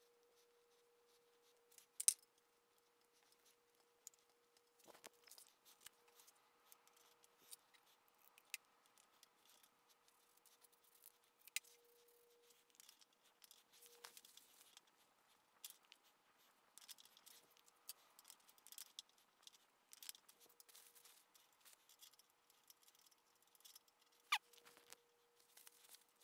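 Quiet, scattered metallic clicks and light scraping as small parts on a Bridgeport mill head are handled, with a sharper click about two seconds in and another near the end, over a faint steady hum.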